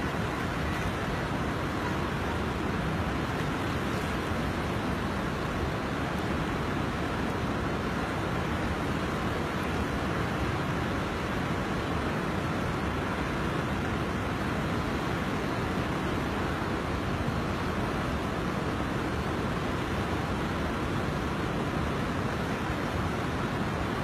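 Steady rushing of a flooded river's water, one even wash of noise with no breaks or changes.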